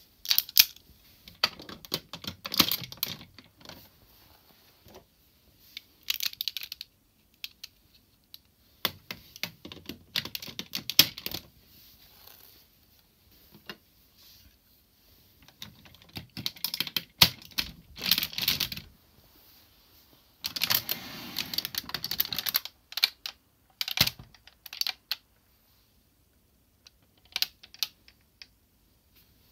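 Hard plastic parts of a DX Zyuohger combining robot toy being handled and snapped together: irregular bursts of clicks and clacks, with a couple of seconds of denser rattling and scraping about two-thirds of the way through.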